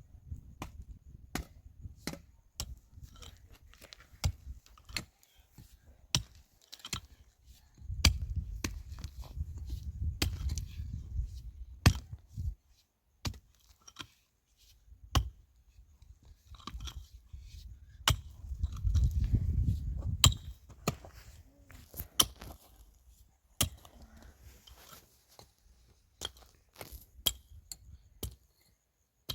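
A series of sharp knocks and clicks at uneven intervals, with two stretches of low rumble, one about a third of the way in and one past the middle.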